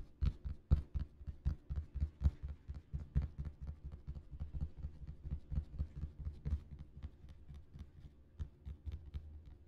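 Fingertips tapping on an Earth-patterned ball, ASMR-style, as a quick run of dull, soft thumps, several a second. The taps grow sparser and fainter near the end.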